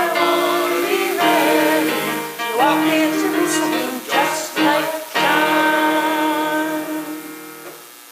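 Hymn sung by a man and a woman with instrumental accompaniment, ending on a held final note that fades out near the end.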